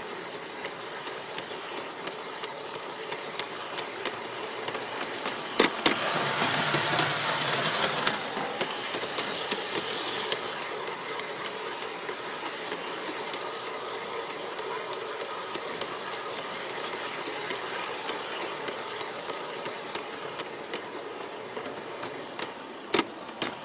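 LGB G-scale model train running along its track, heard from a camera riding on the train: a steady rattle and hum of wheels and motor with fine clicking over the rail joints. It grows louder for a few seconds about six seconds in, with a couple of sharp clicks there and again near the end.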